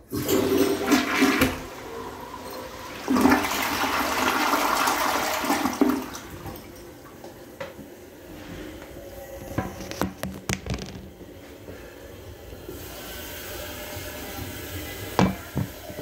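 Jacuzzi Perfecta toilet flushing: a sudden loud rush of water, a second surge about three seconds in, then quieter steady running water after about six seconds, with a few sharp clicks near ten seconds.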